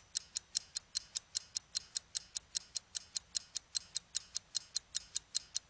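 Film projector running sound effect: sharp, even clicks, about five a second, over a faint low hum.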